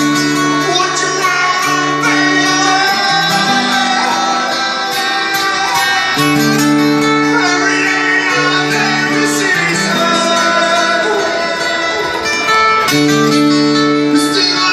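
Background music: a song with guitar and held chords.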